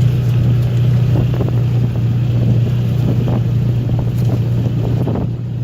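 Steady low motor drone with rumbling wind noise on the microphone.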